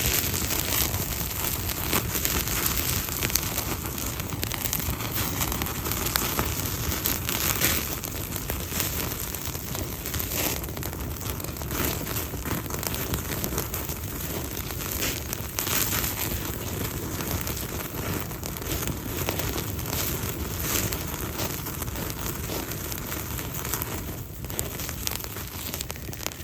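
Campfire of damp forest wood crackling, with a steady rush of noise and frequent small pops.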